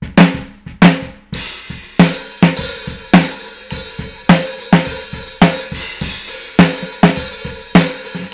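Playback of a recorded drum kit through a low-EQ'd snare microphone track: a steady beat of ringing snare hits, with hi-hat and cymbals coming through as bleed from the overhead mics.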